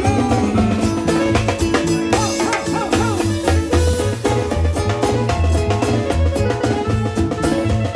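Live band music: a drum kit and bass keep a steady, regular dance beat under a gliding melody line.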